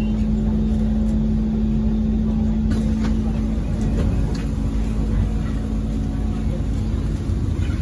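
Cabin noise of a Kawasaki Heavy Industries C151 metro train under way: a steady, loud rumble of wheels and running gear with a steady motor tone that stops a little over halfway through. A few light clicks and rattles come through on top.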